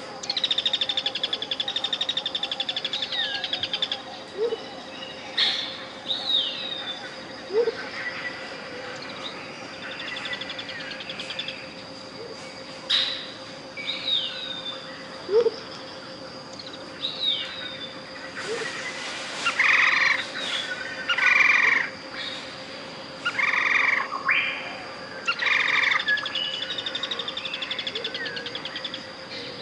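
Tropical jungle birds calling over a steady 528 Hz pure tone. A fast trill opens it, downward-sliding chirps repeat through the middle, and a run of loud, short calls comes in the second half.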